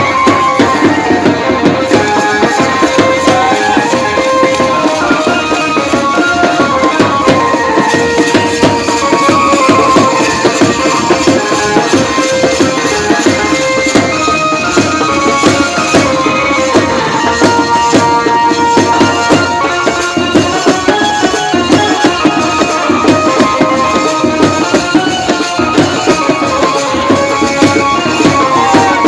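Loud live Indian brass-band music: a drum beats a fast, steady rhythm under a held melody from the horns.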